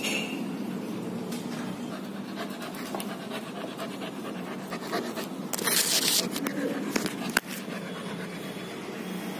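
German Shepherd puppy panting. Past halfway comes a loud brushing noise, followed by a sharp knock.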